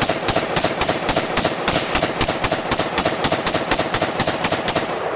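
Rapid gunfire from a rifle: about twenty evenly spaced shots at roughly four a second, each echoing into the next, with the string ending near the end.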